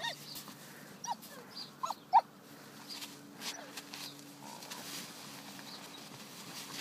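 Australian shepherd puppy giving a few short, high-pitched whines, around one and two seconds in, the last one the loudest.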